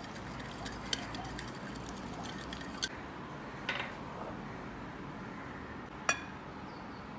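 Metal wire whisk clinking against a ceramic bowl while whisking a thin batter, a few sharp, spaced-out clinks. Another single clink of dishware about six seconds in.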